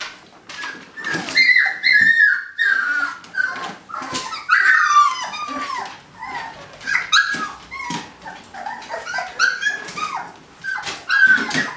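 Eighteen-day-old husky puppies whimpering and whining in many short high-pitched cries, with two longer falling whines, one about a second and a half in and one about four and a half seconds in, amid short clicks.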